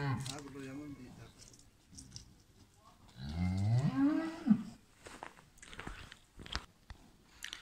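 A dairy cow mooing once, a call of about a second and a half that rises in pitch and then drops, about three seconds in. A few short soft knocks follow near the end.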